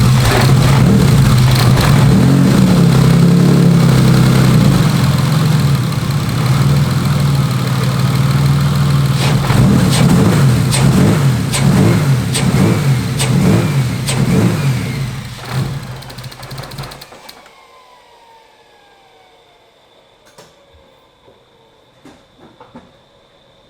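BMW E36 inline-six running after starting on a new set of GM LQ9 coil-on-plug ignition coils, with uneven pulsing in its note from about nine seconds in that fits the owner's remark that the fuel mapping now seems a little off. The engine shuts off about seventeen seconds in, followed by a falling whine as it winds down.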